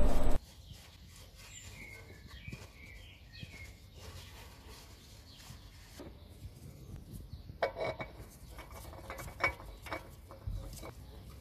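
Faint clicks and light scraping of a spin-on oil filter being handled and threaded by hand onto the engine's filter mount, with a few sharper clicks in the second half and a low thump near the end.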